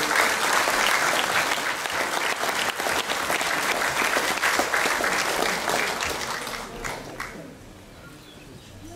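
Audience applauding in a hall. The dense clapping dies away about seven seconds in.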